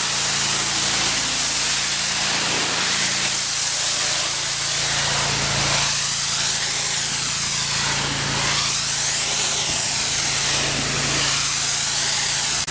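Pressure washer spraying water onto wooden deck boards, a steady loud hiss whose tone shifts as the wand sweeps back and forth, with a steady low hum underneath.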